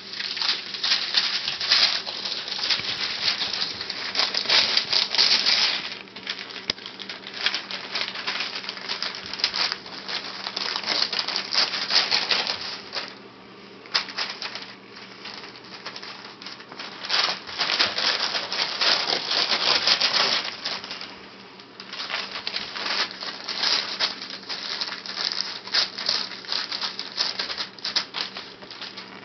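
Newspaper rustling and crinkling as a puppy tugs at it and scrambles over it, in spells of several seconds with short quieter gaps between.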